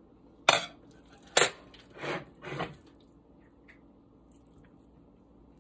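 Two sharp clinks of the stainless canning funnel against glass Mason jars, the second louder, then two softer squishy sounds of raw chicken thigh pieces dropping through the funnel into a jar.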